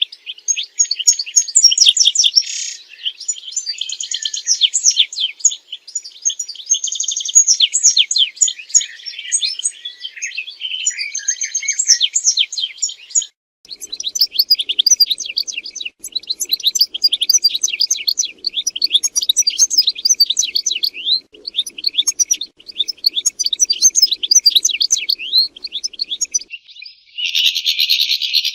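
European goldfinch singing: a fast, continuous twittering of quick chirps, trills and liquid notes, with a brief pause about halfway through.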